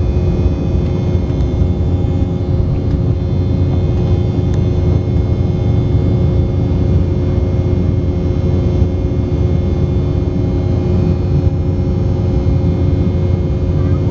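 Embraer 190's wing-mounted GE CF34 turbofans running steadily during the climb after takeoff, heard inside the cabin: a loud, even rumble with several steady whining tones over it.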